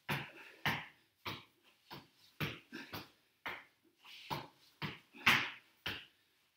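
An inflated sport ball bounced repeatedly on the floor during bouncing sit-ups, sharp hits about twice a second.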